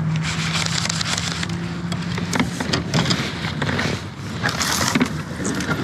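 Kayak being paddled: paddle strokes through the water with frequent clicks and knocks of gear against the plastic hull, over a steady low hum that fades out about halfway through.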